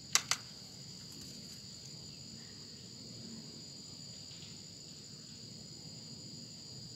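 Steady, high-pitched chirring of night insects, holding two even tones. Two sharp clicks come just after the start.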